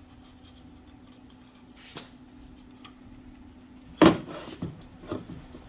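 A part being fitted back into place by hand: a few light clicks and one sharp knock about four seconds in, over a steady low hum.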